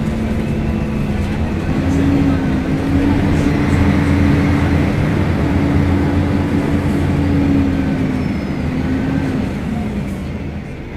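Diesel engine of a Mercedes-Benz O500UDA articulated bus running under way. It climbs in revs about two seconds in, holds, then eases off near the end.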